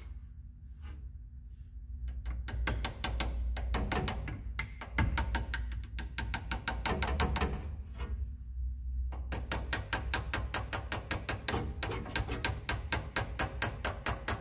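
Rapid light hammer taps on a socket used as a makeshift seal driver, seating a new output-shaft seal in a 700R4 transmission's extension housing. The taps come about four to five a second in two runs, with a pause of a few seconds in the middle.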